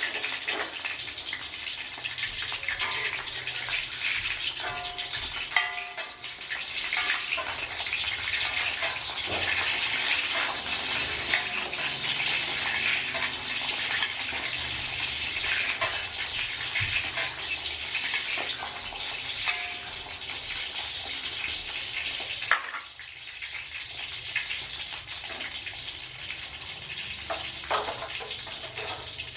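Hot oil sizzling and crackling steadily around a whole fish frying in a wok with garlic cloves and shallots. A sharp knock comes about three-quarters of the way through, after which the sizzle is quieter.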